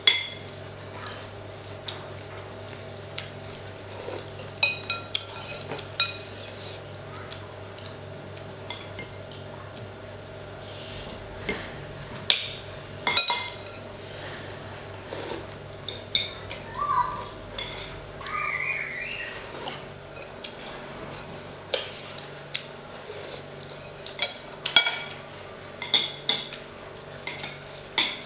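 Metal spoons and forks clinking and scraping against ceramic plates and a glass bowl during a meal, in irregular short clicks, over a steady low hum.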